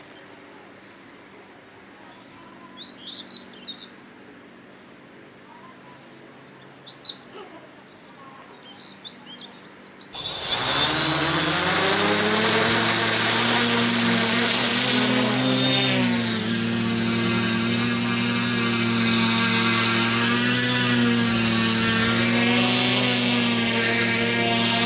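A few faint bird chirps over quiet street ambience. About ten seconds in, the electric motors and propellers of a hybrid tricopter VTOL spin up together into a loud, steady multirotor drone and whine. Its pitch wavers slightly as it lifts off and hovers.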